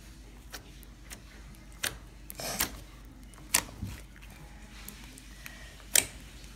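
A large ball of slime being kneaded and squeezed by hand, giving off a string of sharp wet clicks and pops, the loudest about two, three and a half and six seconds in, with a short squelch around two and a half seconds.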